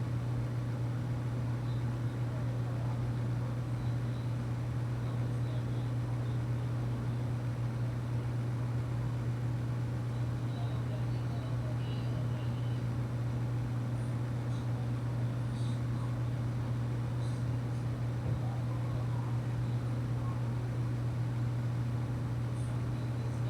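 A steady low hum over an even background noise, unchanging in level, with a few faint brief high-pitched ticks in the middle.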